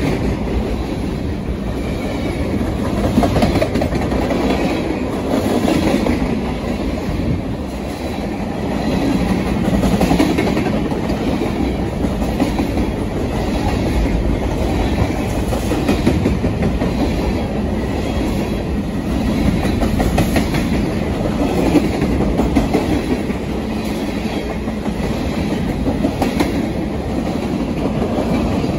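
BNSF covered hopper freight cars rolling past at close range: a steady rumble of steel wheels on rail with a regular clickety-clack.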